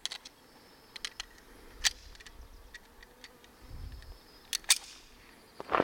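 A few short, sharp clicks of metal and plastic as a stainless Walther PPK/S pistol and its magazine are handled between strings of fire, with a close pair of clicks near the end.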